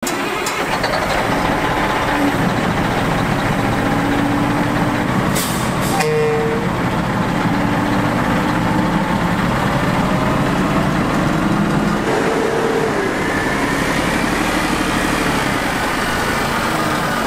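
Oshkosh PLS 10x10 military truck's big diesel engine running, its pitch shifting up and down, with a short hiss of air about five seconds in.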